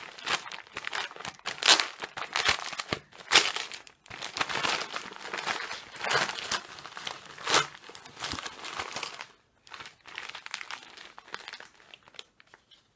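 Christmas wrapping paper being torn open and crinkled by hand: irregular rustling with a few sharp, louder rips, thinning to occasional faint rustles over the last few seconds.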